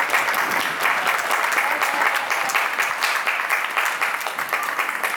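Stadium crowd clapping: a dense, continuous patter of many hands.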